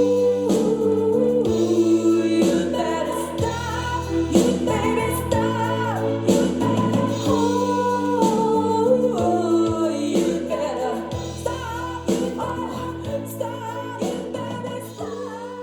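A song with singing over sustained chords and bass, played back through a single-ended EL84 tube amplifier; it grows quieter near the end.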